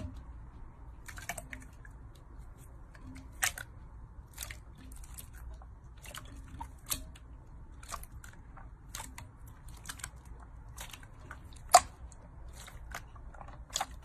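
Slime being squeezed and pressed by hand, making irregular crisp clicks and pops, one or two a second, over a steady low hum. The loudest pop comes near the end.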